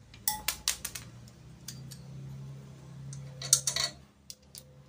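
Metal clinks and clicks of a wrench working a bolt on a motorcycle's rear drum-brake panel: a few sharp strikes near the start and a quick cluster about three and a half seconds in. A low steady hum sounds under the middle of it.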